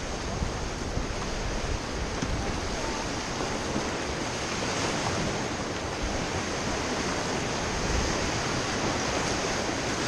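Steady rush of fast river water around an inflatable raft heading into a whitewater rapid, with some wind noise on the microphone.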